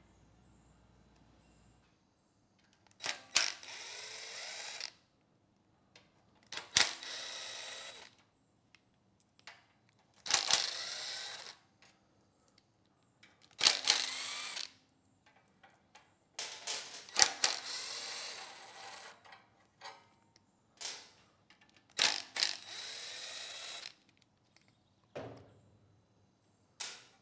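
Cordless impact driver backing out the six small valve cover bolts on a small engine: six short runs of a couple of seconds each, each starting with a sharp hit and then spinning steadily, with light clicks between as the bolts come out.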